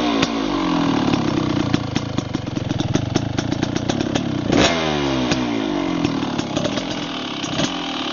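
Kawasaki KDX 220 two-stroke single-cylinder dirt bike engine running at idle with irregular pops. It winds down from a throttle blip at the start, and is blipped once more about four and a half seconds in, the revs then falling back to idle.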